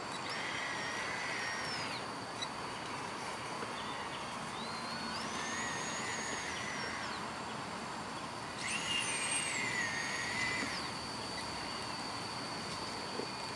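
Small electric gear motors of an RC Komatsu PW180 model excavator whining in three spells of about two seconds each. The pitch glides up as each motor starts and falls away as it stops while the boom, arm and drive move. The third spell is the loudest.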